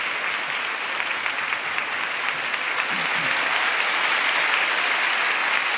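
Theatre audience applauding steadily, a dense clapping that builds slightly toward the end.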